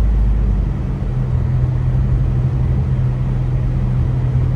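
Steady low rumble of a car driving, heard from inside the cabin. About a second in, the deepest rumble eases and a steady low hum carries on.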